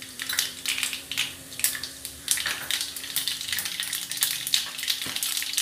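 Mustard seeds sizzling and crackling in hot oil in a steel pan, as they splutter during tempering. The crackles are irregular and there is a faint steady hum underneath.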